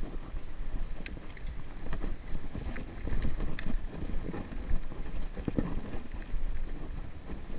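Mountain bike rolling over a rocky dirt trail: a steady low rumble of tyres on dirt, with irregular clicks and knocks from stones and the bike rattling over them.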